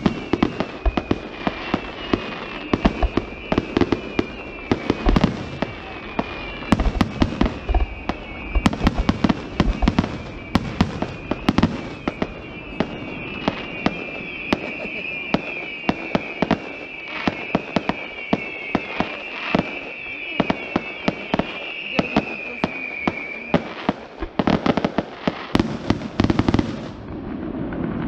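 Fireworks display: aerial shells bursting and crackling in rapid, uneven succession, with a last cluster of bangs near the end. A continuous high-pitched chirping runs under the bangs and stops a few seconds before the end.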